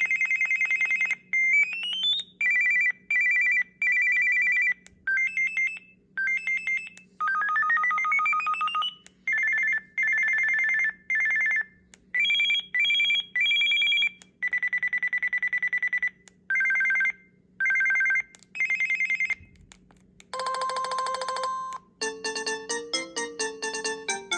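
Preloaded ringtones of a Samsung SPH-A620 cell phone playing one after another through its speaker: a string of short electronic beeping and trilling ring patterns, a couple of them sweeping up in pitch, with brief pauses between them. Near the end a fuller multi-note ringtone melody begins.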